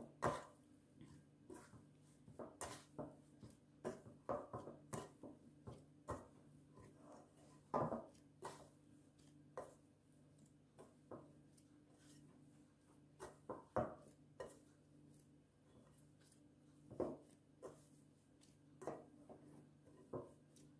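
Hands mixing soft roti dough in a glass mixing bowl: irregular soft knocks and thuds of dough and fingers against the glass. A faint steady hum runs underneath.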